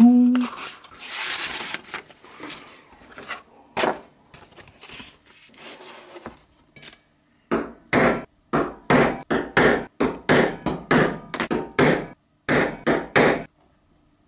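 Scissors snipping through paper, then about fifteen sharp hammer blows on a steel hollow punch, about three a second with one short pause, cutting bolt holes in gasket paper laid on a cutting mat.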